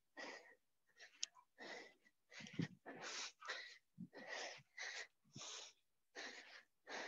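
Heavy, rapid breathing from exertion during jumping exercise, short noisy breaths in and out about twice a second.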